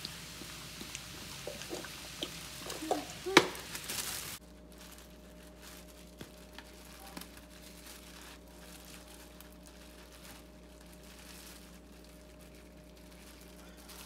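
Soda glugging out of an upturned plastic bottle into a plastic oven bag of vegetables, with short rising gurgles and a loud splash-like burst near the end of the pour. About four seconds in it stops abruptly, leaving a faint steady hum and a few light rustles of the bag.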